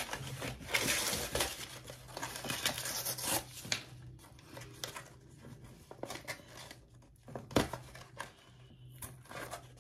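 A Shining Fates Pokémon booster pack being opened, its wrapper crinkling and tearing: dense crackling for the first three and a half seconds or so, then scattered crinkles and clicks.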